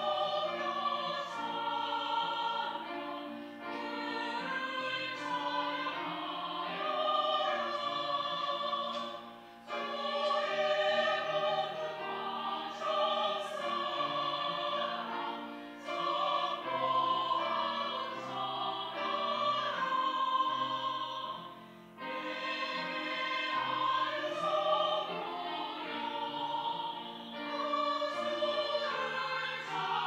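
Mixed-voice church choir singing an anthem in long sustained phrases, with brief breaks between phrases.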